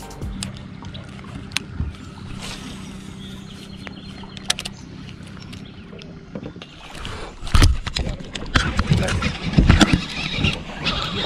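Handling noise of a baitcasting rod and reel right at the camera. A steady low hum runs for the first half, then from about seven seconds in come loud, irregular knocks and rubbing as hands grip and work the rod handle.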